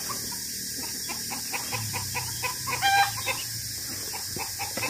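Chickens clucking in a quick run of short clucks, with one louder call about three seconds in.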